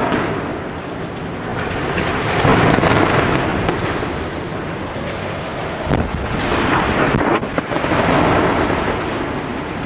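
Concrete smokestacks toppling and crashing down in an explosive demolition: a loud continuous rumble that swells and fades, with sharp bangs about six and seven and a half seconds in.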